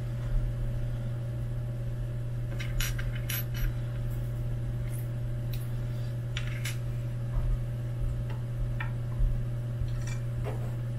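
Small metal hardware, M3 screws and T-nuts, clicking and clinking in scattered light ticks as it is handled in a plastic bag, over a steady low hum.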